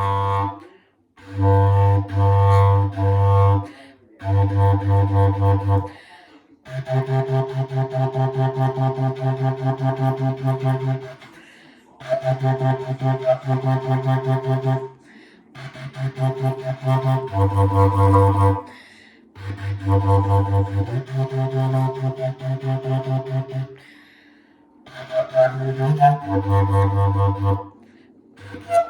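A single low-pitched wind instrument playing a repetitive band part solo. It plays phrases of fast repeated low notes, each a few seconds long, separated by brief rests.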